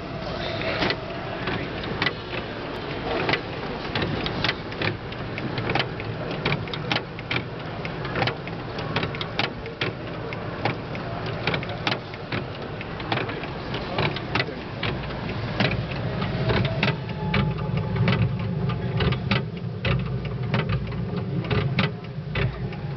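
Antique mechanical display of carved wooden Anri figures running, its moving figures and mechanism making many irregular clicks and knocks over a low hum.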